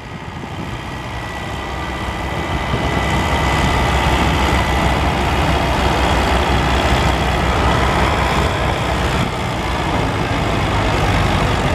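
Farm stock tractor engine working hard under load as it pulls a weight-transfer sled, growing louder over the first few seconds and then holding a steady, heavy run.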